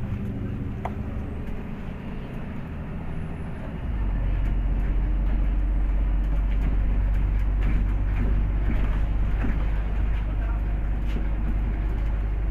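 A MAZ-203 city bus's engine running, heard from inside the cabin as a steady low rumble. About four seconds in, the rumble steps up and stays louder, with a few faint clicks later on.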